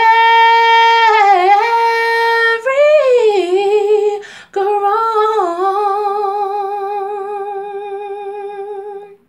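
A woman singing unaccompanied, drawing out long wordless notes: a held note, a short gliding phrase, then one long wavering note that fades out near the end.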